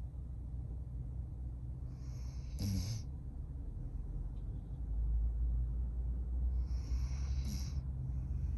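Sleeping Doberman breathing deeply, with two long breaths each ending in a short snort: one about two and a half seconds in and one near the end.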